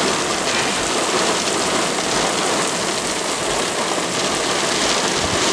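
Heavy thunderstorm downpour driven by strong wind, heard through an open car window: a loud, steady hiss of rain with low rumbling wind.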